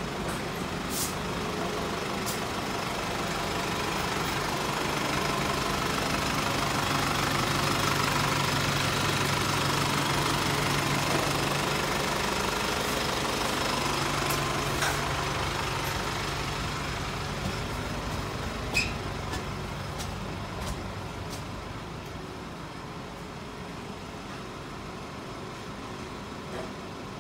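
A vehicle engine running with a steady low hum, growing louder over several seconds and then fading away, with a few faint clicks.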